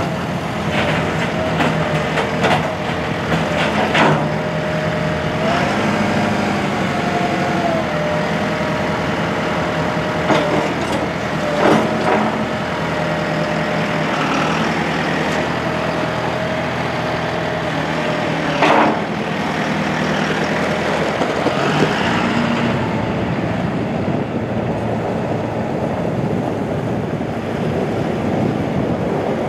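The four-cylinder turbo diesel engine of a 2019 John Deere 5090E tractor running as the tractor drives about, with a steady whine in the engine note that rises briefly about six seconds in. A few sharp knocks come through along the way, and in the last several seconds the whine drops out, leaving a rougher, noisier running sound.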